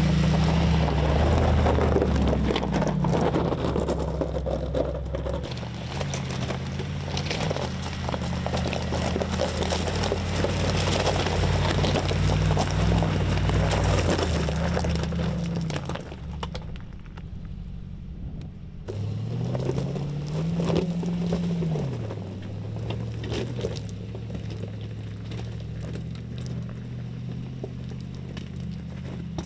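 The Mercedes-AMG G63's 4.0-litre biturbo V8 running under changing load while the SUV drives over loose gravel and rock, with stones crunching under the tyres. About 19 seconds in, the engine revs up in a short rising sweep and then settles. The crunching is louder in the first half.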